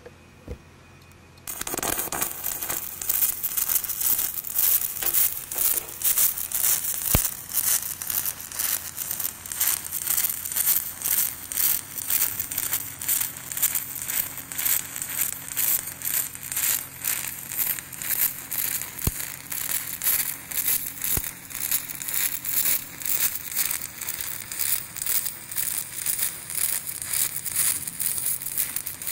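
Aluminum stick electrode arc welding on aluminum plate. The arc strikes about a second and a half in and then crackles steadily, swelling and fading about twice a second with the welder's 2.2 Hz pulse setting.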